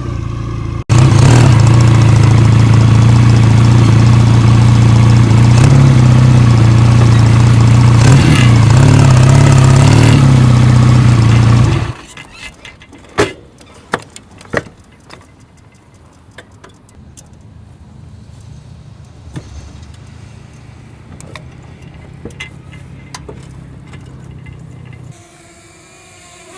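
Motor vehicle engine running loud and close, its pitch stepping up and down as it speeds up and slows. About halfway through it drops abruptly to a faint low hum with a few knocks.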